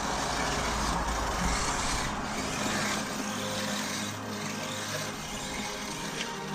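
Hobby-grade electric RC car running on dirt: a steady mix of motor and drivetrain noise with tyre and gravel noise.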